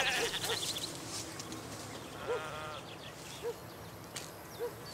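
A goat bleats once, a short wavering call about two seconds in, with faint bird chirps around it.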